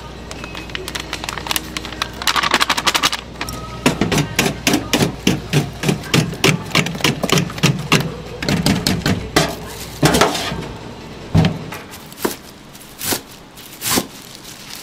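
A run of quick knocks and taps, about three a second, starting about four seconds in and thinning out to a few separate knocks near the end.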